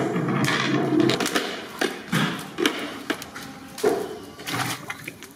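Raw chicken pieces dropped by hand into a large aluminium cooking pot: an irregular series of wet slaps and dull thuds, opening with about a second of rustling handling noise.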